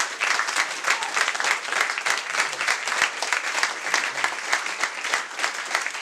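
Crowd of wedding guests applauding steadily, many hands clapping at once, as the bride and groom enter the room.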